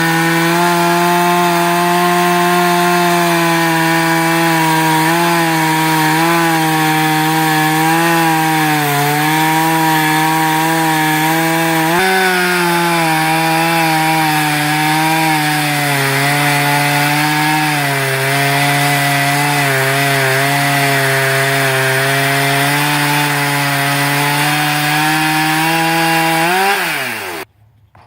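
Sawmill running with a strong steady hum whose pitch sags briefly now and then. Near the end the pitch falls quickly and the sound stops as the mill winds down.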